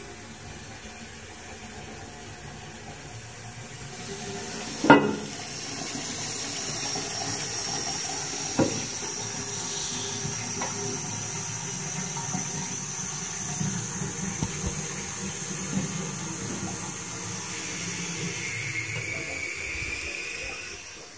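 Water running into a low-level toilet cistern as it refills, with a steady hiss. A sharp knock comes about five seconds in and a smaller one a few seconds later, and a thin, slightly rising whistle joins near the end.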